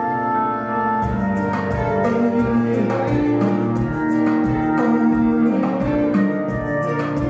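Kizomba music playing: held chords, with a steady beat coming in about a second in.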